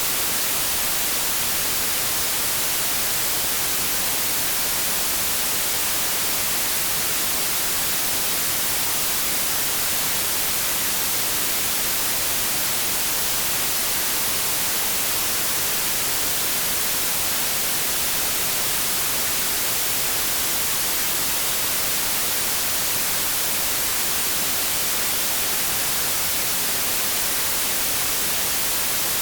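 Steady synthetic white noise: an even, unbroken hiss, strongest in the high treble.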